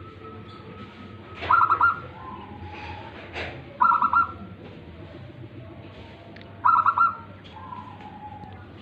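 Zebra dove (perkutut) cooing: three phrases about two and a half seconds apart, each a quick rattle of notes followed by a lower, softer note.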